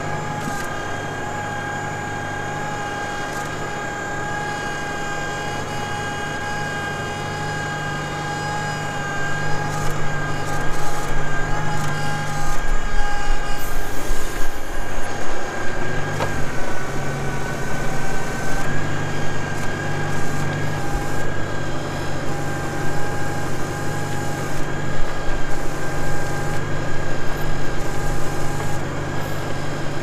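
Tractor engine running under load while pulling a mouldboard plough through wet soil, with a steady high whine over the engine note. About nine seconds in, the sound gets louder and rougher.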